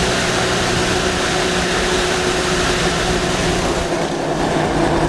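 Off-road go-kart's 420cc single-cylinder engine running steadily while the kart is driven, with tyre and wind noise over it; the engine note eases slightly about four seconds in.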